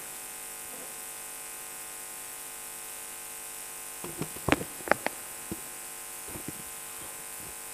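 Steady electrical hum and hiss from the sound system. From about four seconds in, a cluster of sharp knocks and clicks as the microphone is handled and adjusted.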